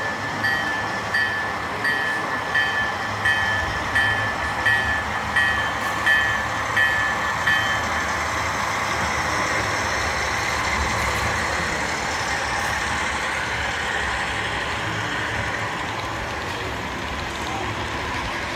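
HO-scale model diesel train passing close by: a bell rings about once every 0.7 seconds, stopping about eight seconds in. After that comes the steady running sound of the locomotives and freight cars rolling over the track.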